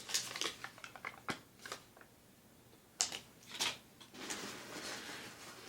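Rummaging through a purse: small items clicking and knocking against each other, with the sharpest clicks about three seconds in, then a longer rustle near the end.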